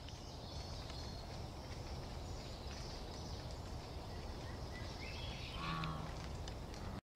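Outdoor woodland background noise, a steady hiss, with faint bird chirps in the first second or two and a short rising call about five to six seconds in.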